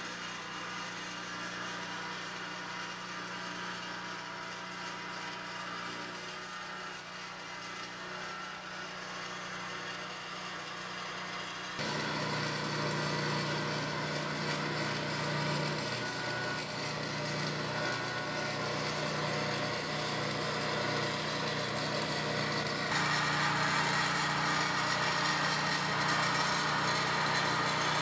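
A steady mechanical hum, like a small engine running, that steps abruptly louder about twelve seconds in and again near the end.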